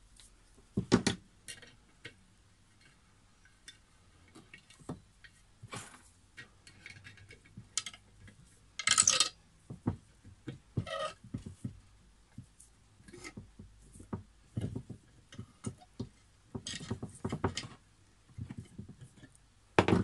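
Pliers and wire being handled while a tree is wired into a bonsai pot: scattered short clicks, clinks and knocks, with a louder burst of noise about nine seconds in.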